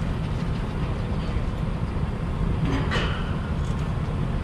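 A steady low rumble with no clear engine note, with a short faint knock about three seconds in.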